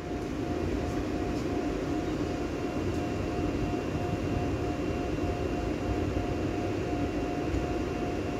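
Pesa Dart ED161 electric multiple unit standing with its pantograph lowered, giving a steady hum with a thin whine held on one pitch.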